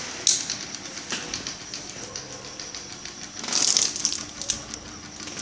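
Table fan running steadily, with a sharp click near the start, scattered lighter clicks and a brief rustling scrape about three and a half seconds in.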